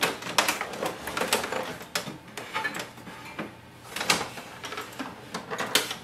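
Epson WorkForce Pro WF-4820 printer being turned around and slid across a tabletop by hand: irregular knocks, clicks and scraping of its plastic casing against the table.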